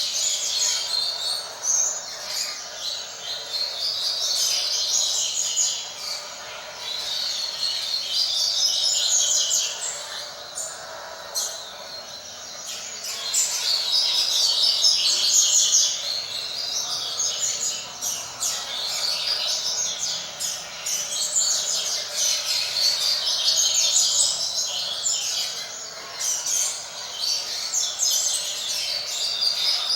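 Coleiro (double-collared seedeater) singing in the tui-tui style: repeated phrases of rapid, high notes, each a few seconds long with short pauses between.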